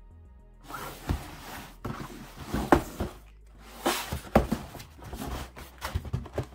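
Cardboard shoebox being handled and turned over by hand: rustling and scraping of the cardboard with several sharp knocks, starting about half a second in and stopping just before the end.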